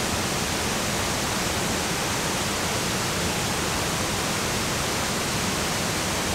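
Steady rushing of a waterfall, an even hiss of falling water that does not change.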